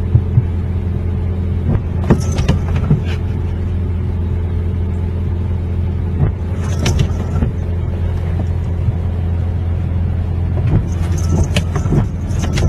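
A steady low hum or rumble with scattered sharp clicks and knocks over it.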